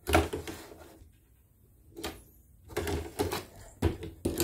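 Several separate clacks and knocks of a plastic embroidery hoop being handled and taken off an embroidery machine.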